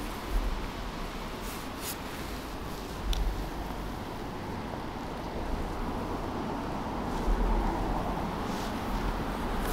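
Wind gusting on the microphone: low rumbling buffets that come and go over a steady rush of noise, with a few faint clicks.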